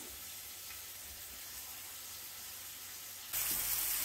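Flour-dredged chuck roast searing with onions in hot oil in a skillet, sizzling steadily; the sizzle turns suddenly much louder about three seconds in.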